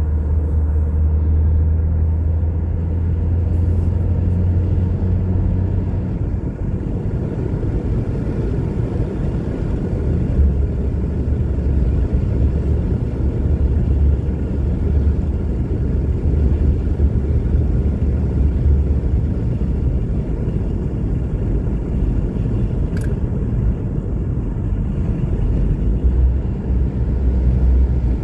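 Car driving at steady speed: a continuous low rumble of engine and road noise.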